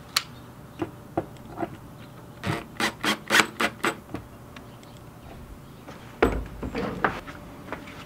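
Cordless drill-driver driving a screw through a skull-mount bracket in about six short spurts around the middle, after a few light handling clicks. A low thump follows about six seconds in.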